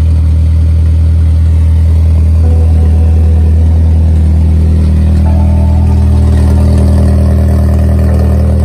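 Engine of a 2021 Mitsubishi RVR idling with a loud, steady, low exhaust drone, louder than normal because the catalytic converter has been cut out and stolen, leaving the exhaust open.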